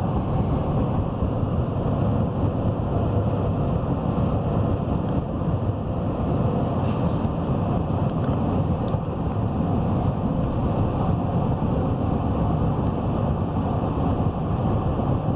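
A 2017 Chevy Silverado 3500 pickup driving at highway speed, heard from inside the cab: a steady low drone of engine and tyre road noise.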